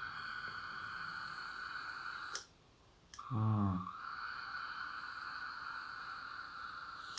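Steady airflow whistle of a GeekVape Zeus sub-ohm tank as air is drawn through it, two long inhales of about three seconds each. Between them there is a short, low voiced exhale.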